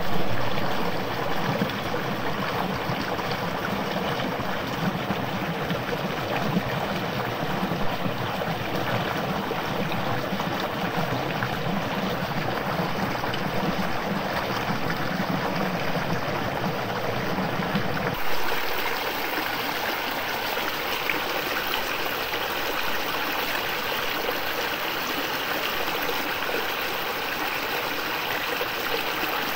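Stream water flowing and trickling steadily. About 18 seconds in the sound changes to a thinner, hissier rush with less low rumble.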